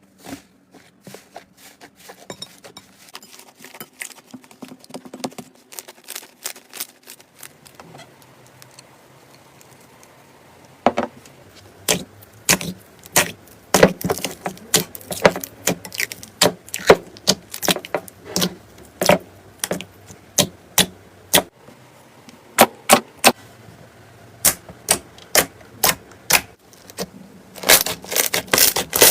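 Slime being squeezed and poked by hand, making irregular sharp clicks and pops: soft and scattered at first, then louder and more frequent from about a third of the way in.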